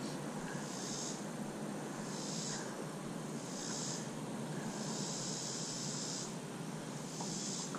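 Outdoor background on the water: a steady low hum and hiss, with a high-pitched hiss that swells and fades about every second and a half.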